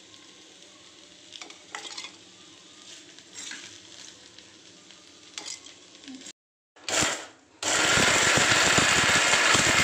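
Electric mixer-grinder running at full speed, grinding chunks of roasted coconut and dried red chillies in a steel jar. It starts suddenly about three-quarters of the way in and runs on steadily. Before it there are a few faint scrapes as the ingredients go into the jar.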